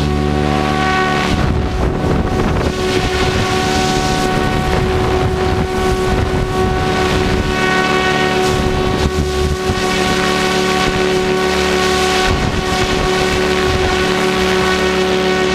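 Goblin 700 RC helicopter in flight, heard from its tail boom: a steady whine from the rotor drivetrain holding one pitch, with rotor wash and wind rushing over the microphone.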